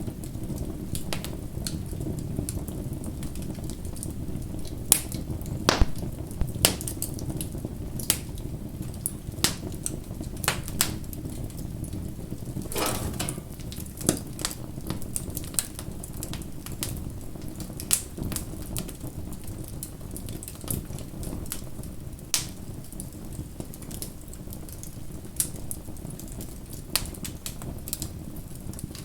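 Wood bonfire burning: a low, steady rush of flame under frequent irregular crackles and sharp pops, with a cluster of louder pops about five to seven seconds in.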